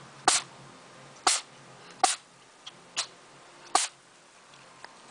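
A cat making five short, sharp bursts of sound, about one a second, the fourth weaker than the rest.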